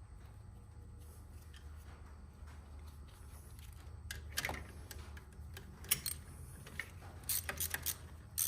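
Hand tools at work on the Ford 550 backhoe's belt drive: sharp metallic clicks and clanks that start about four seconds in and come more often near the end, over a steady low hum.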